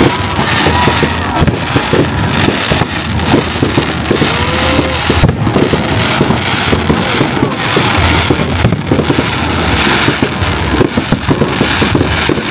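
Fireworks display: shells bursting in a dense, continuous run of sharp bangs.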